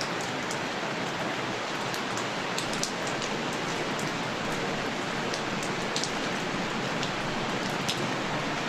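Recorded sound of steady rain: an even hiss with scattered sharp drop ticks.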